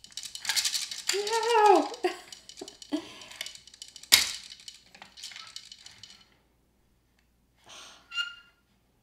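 Plastic gears of a Downspin game clicking rapidly as the key turns them, with a single sharp plastic knock a little after four seconds in.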